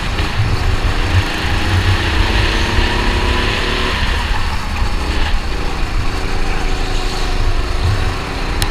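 Go-kart engine heard from the driver's seat at racing speed, its pitch rising and falling with the throttle through the corners, over a heavy low rumble. There is a short sharp click near the end.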